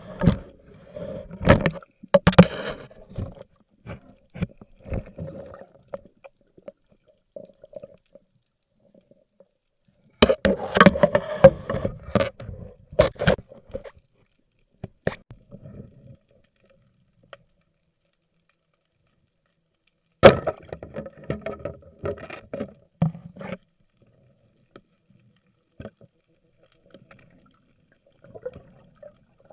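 Underwater recording of knocks, clicks and bubbling water as a speared fish is handled on a spear shaft. The sounds come in three bunches, near the start, about ten seconds in and about twenty seconds in, with long quiet gaps between them.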